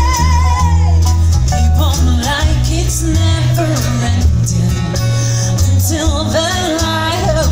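Live band performance: a female singer sings over amplified electric guitar, acoustic guitar and a heavy bass line. She holds a long wavering vibrato note that ends just under a second in, then sings a moving melody.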